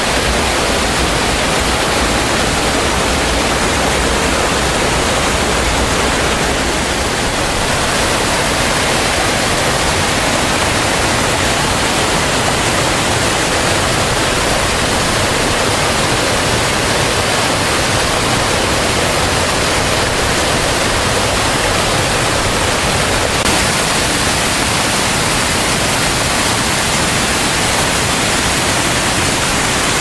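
Steady, loud rush of a mountain stream tumbling over rocks, its deep rumble easing a little about seven seconds in.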